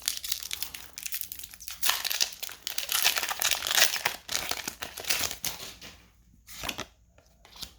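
Foil wrapper of a Pokémon card booster pack crinkling and tearing as it is ripped open and handled, with dense crackling that dies down after about five and a half seconds, leaving a few light clicks.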